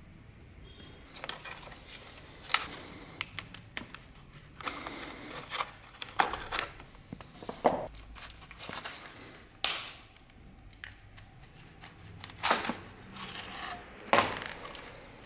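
Old, brittle leather on a wooden dagger scabbard being cut and pried loose with a small folding utility knife, with the brass end fitting worked off. Irregular crinkling, tearing and scraping, broken by sharp clicks, a few of them loud.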